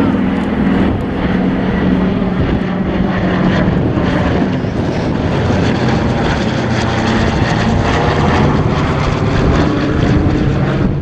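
Twin radial piston engines of a World War II warbird flying by: a loud, steady propeller drone whose pitch wavers slightly as it passes.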